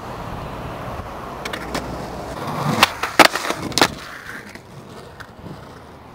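Skateboard wheels rolling on concrete, then a short scrape and three sharp clacks of the board on concrete about three seconds in, then quieter rolling.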